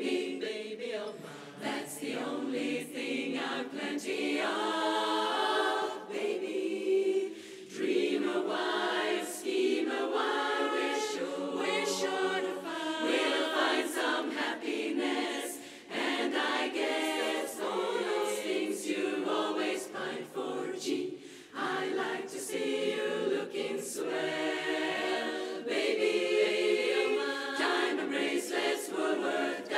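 Women's barbershop chorus singing a cappella in close four-part harmony, phrase after phrase with short breaths between.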